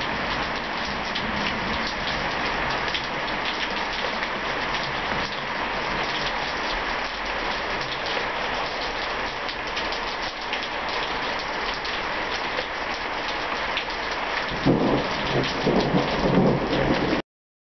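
Steady rain falling, with a rumble of thunder that comes in about three-quarters of the way through and grows louder. The sound stops abruptly shortly before the end.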